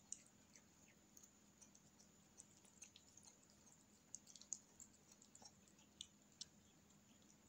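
Kittens chewing and biting at cat grass: faint, irregular crisp clicks and crunches from the blades, busiest about halfway through.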